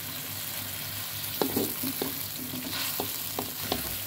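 Wooden spatula stirring a chili-and-shallot seasoning in a metal wok, knocking against the pan a few times, over a steady sizzle from the pan.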